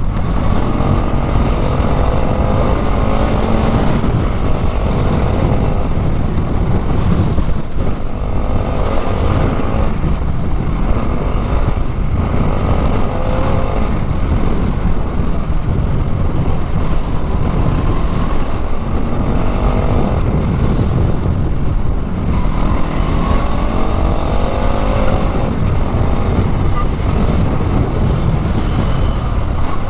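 Bajaj Pulsar NS200's single-cylinder engine pulling hard at highway speed, its pitch climbing and dropping again several times as it revs through the gears. Heavy wind rush on the helmet microphone runs underneath.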